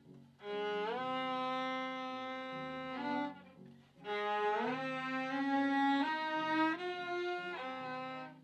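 Two violin-family instruments playing a slow passage together in long bowed notes, with audible upward slides as the players shift position. The playing starts about half a second in, breaks off for under a second a little past the middle, then resumes.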